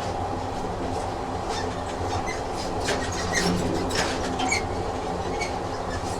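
Train running on rails: a steady rumble with scattered clicks and brief high squeaks from the wheels and carriage.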